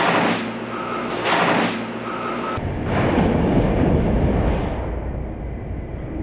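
Dual-head drum sander running as the sandpaper on its back drum rips mid-pass: two loud popping bursts near the start and about a second later, then a heavier, muffled rumble. The popping is the torn abrasive strip slapping around the spinning drum.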